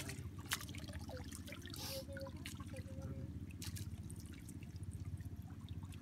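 Water trickling and dripping off a wet fishing net as it is gathered and handled in shallow river water, with many small splashes and drops over a steady low rumble.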